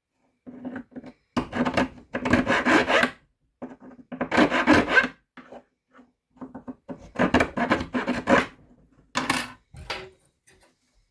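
Hand filing or rasping in back-and-forth strokes, in about six bouts separated by short pauses.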